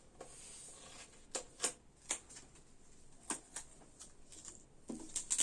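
A scattering of light taps and rustles, about a dozen short separate clicks spread over a few seconds, some close together near the end.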